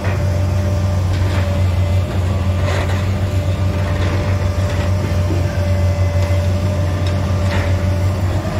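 Long-reach demolition excavator's diesel engine running steadily, with a few sharp crunches as its attachment breaks into the concrete building, about a second and a half in, near three seconds and again near the end.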